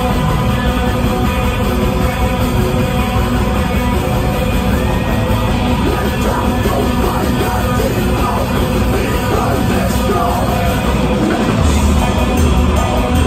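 Metal band playing loud live music, heard from within the crowd. The bass gets heavier near the end.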